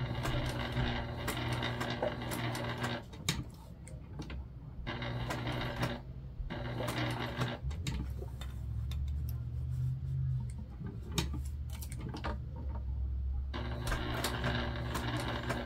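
Electric sewing machine topstitching through vinyl in short runs. It starts and stops several times as the fabric is turned to follow a curve, with small handling clicks in the pauses.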